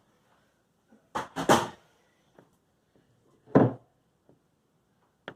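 A few short knocks and clatters: a quick cluster of two or three about a second and a half in, then a single, loudest one about three and a half seconds in.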